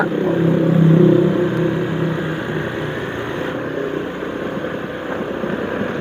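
Motor scooter engine running at low speed with a steady hum, louder about a second in; after about two seconds the engine note fades, leaving wind and road noise from the ride.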